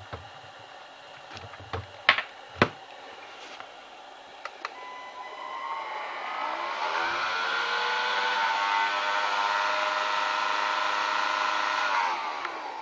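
Iris Ohyama SBD-74-W cordless stick vacuum cleaner: a couple of clicks, then its motor spins up with a rising whine over about two seconds, runs steadily, and winds down near the end.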